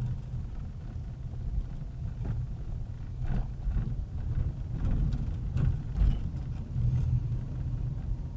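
A car being driven: a steady low engine and road rumble, with a few short knocks and rattles between about two and six seconds in.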